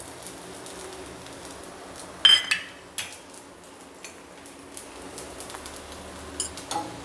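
Steel spoon clinking against a small steel bowl as oil is spooned onto a dosa, over a faint sizzle from the hot griddle. There is a ringing clink a little over two seconds in, two more soon after, and a couple more near the end.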